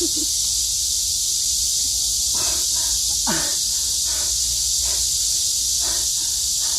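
Steady high-pitched hiss, with a few faint short voice sounds, strained grunts or groans, about once a second in the second half, one of them falling in pitch.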